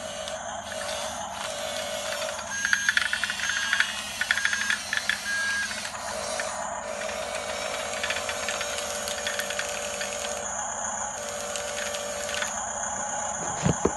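Electric motors and plastic gearing of a radio-controlled toy bulldozer whirring and rattling steadily, with a run of short high beeps about three seconds in.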